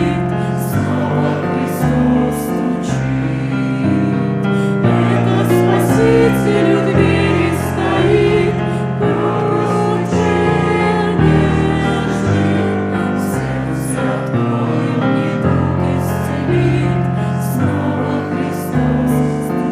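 Music: a slow Christian hymn, voices singing over sustained keyboard chords.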